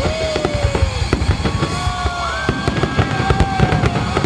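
A fireworks display with shells bursting in quick succession: a dense run of bangs and crackles, with music playing underneath.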